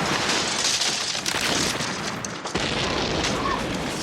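Explosion tearing through a house: a dense, loud blast of noise full of crashing debris, with a second heavy burst about two and a half seconds in, then slowly dying down.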